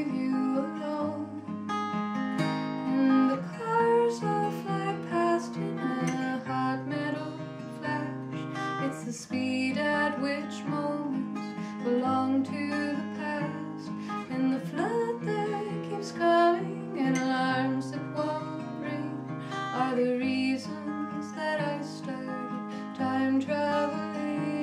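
Takamine acoustic guitar strummed in an instrumental passage of a song, chords ringing out in a steady rhythm.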